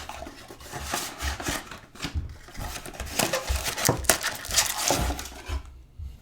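Trading cards and their packaging being handled: irregular rustling, sliding and light tapping, with a short lull near the end.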